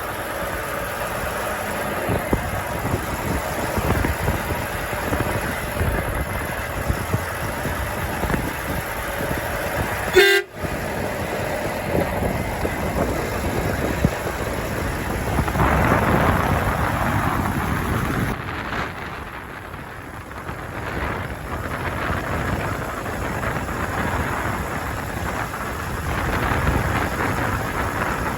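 Truck on the road: steady engine and road rumble, with a truck horn sounding. A sharp click with a brief dropout about ten seconds in.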